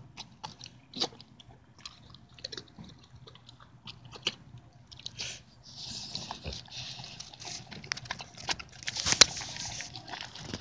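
Dog eating soft food off a plate: a run of chewing clicks and smacks that becomes denser and wetter from about six seconds in, with one sharp loud click near the end.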